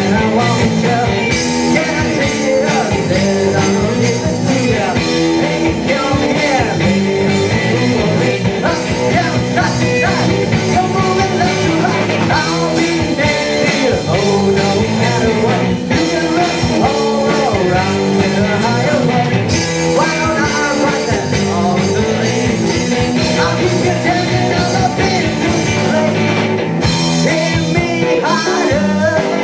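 A rock band playing loudly and steadily live, a full band sound with singing over it.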